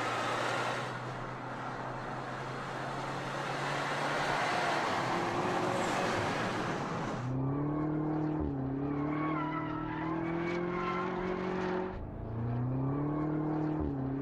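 BMW M5 F90's twin-turbo V8 under way. For the first half a loud, even rushing noise over a steady low hum covers it. About halfway through the engine note comes clear and climbs slowly in pitch. Near the end the pitch drops sharply and recovers, like an upshift, then climbs again.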